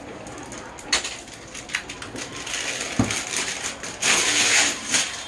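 Plastic shrink-wrap being cut with a utility knife and pulled off a cardboard box, crinkling and rustling, with scattered clicks. There is a knock about three seconds in and a louder burst of crackling a second later as the wrap tears away.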